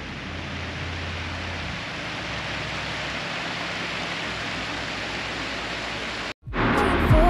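A steady, even rushing noise with a low rumble that fades out in the first two seconds. It cuts off suddenly a little over six seconds in, and music starts right after.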